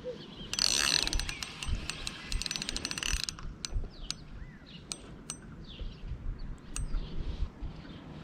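Spinning reel's drag clicking rapidly for about three seconds as a big catfish pulls line off an ultralight outfit spooled with 2 lb line, then a few scattered single clicks.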